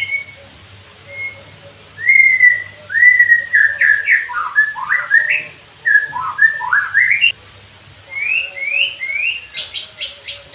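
White-rumped shama (murai batu) singing: loud whistled phrases of quick notes, some sliding up and some sliding down, then three rising whistles and, near the end, a fast run of short sharp notes, several a second.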